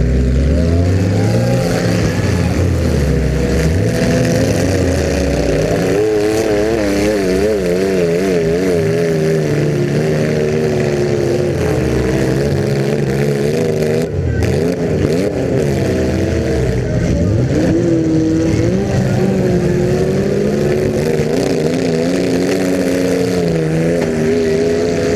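Several demolition derby cars' engines running and revving together, their pitch repeatedly rising and falling, over a steady wash of noise.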